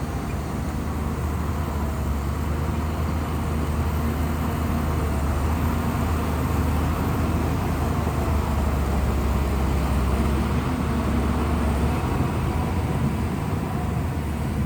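Shantui bulldozer's diesel engine running steadily with a deep hum, mixed with the clatter and noise of the machine at work; the deepest part of the hum drops away about twelve seconds in.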